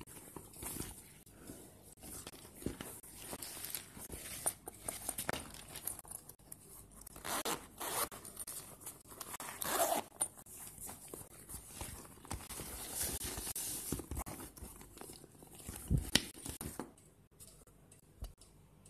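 Hands handling a PU leather messenger bag: a zipper being pulled and wrapping material rustling, with irregular scrapes and clicks, and a thump near the end.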